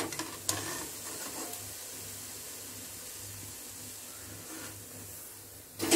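Hot oil sizzling steadily in a kadai as deep-fried lentil vadas are lifted out on a slotted ladle, with a short tap at the very start.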